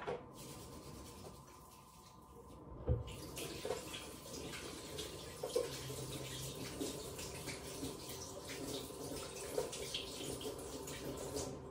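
A kitchen tap running into the sink. A dull knock comes about three seconds in, then the water runs steadily with a few light clinks.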